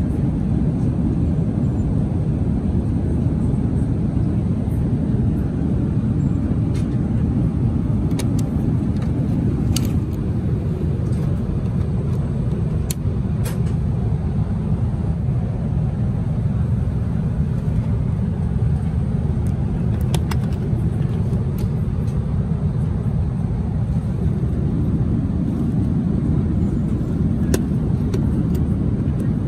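Steady cabin noise inside an Airbus A380, a constant low rush of airflow and engines, with a few light clicks from handling the seatback fittings.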